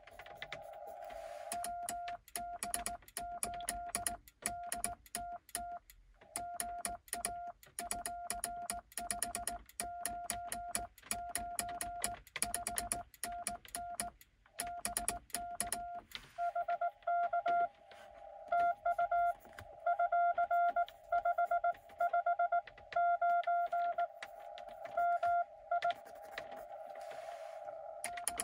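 Morse code from a Xiegu X6100 radio: one steady beep tone keyed on and off in dots and dashes, with sharp clicks from the cootie (sideswiper) key. From about halfway through, the Morse is louder and has a band of receiver hiss around it.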